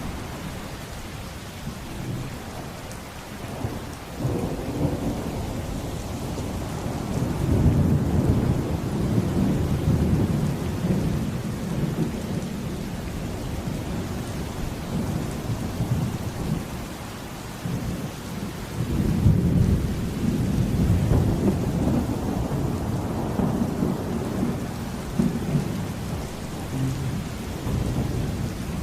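Steady rain with rolling thunder. The low rumble swells twice, about a quarter of the way in and again past the middle.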